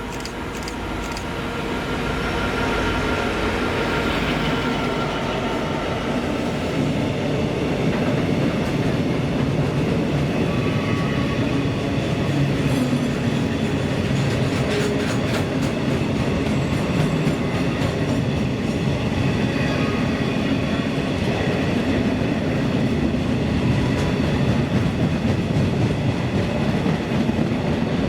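Class 66 diesel-electric locomotive hauling a freight train past, its two-stroke V12 diesel engine running under power. The sound grows over the first few seconds, then holds as a steady rumble of wagons rolling by, with clicking of wheels over rail joints around the middle.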